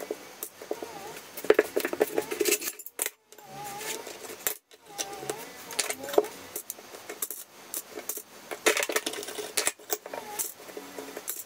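Irregular small plastic clicks and clatter: orange T-shaped tile spacers being picked from a plastic tub and pushed into the joints between porcelain floor tiles, with the odd tile-on-tile clink. It is broken twice by a brief silence about three and four and a half seconds in.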